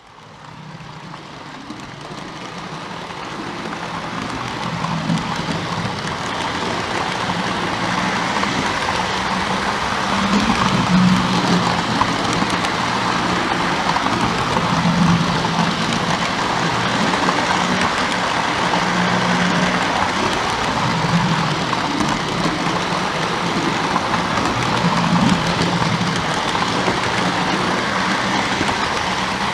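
Lionel O gauge NW-2 switcher and freight cars running along three-rail track: a steady rolling rattle of the wheels with a low, wavering hum, fading in over the first several seconds.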